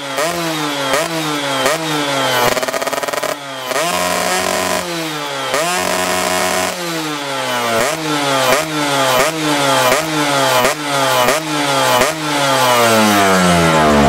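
Yamaha F1ZR's 110 cc two-stroke single-cylinder engine being blipped over and over through a chrome aftermarket muffler: each stab of throttle sends the revs up sharply and lets them fall back, with a few seconds held at steady revs mid-way and the revs dying away near the end. The blipping tests the carburettor's new jetting.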